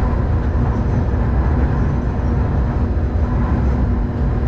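Streetcar running along the street, heard from inside the passenger car: a steady low rumble of wheels on rail and motor, with a faint steady hum over it.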